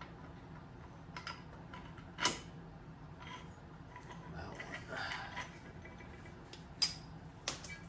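Scattered metal clinks and light knocks from car suspension parts and hand tools being handled, with one sharper knock about two seconds in and a few more near the end.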